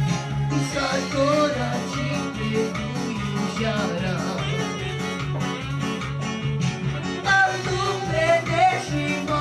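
A man singing live into a microphone over an electronic keyboard accompaniment, amplified through a small mixer. The vocal line comes and goes in phrases, with a strong phrase near the end.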